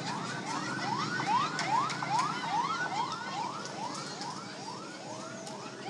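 Ambulance siren in a fast yelp, its pitch sweeping up and down about three times a second. It grows loudest in the first couple of seconds, then fades as it passes.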